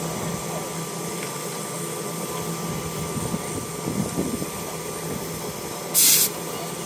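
Baldwin narrow-gauge steam locomotive standing with a steady mechanical hum. A short, sharp hiss comes about six seconds in.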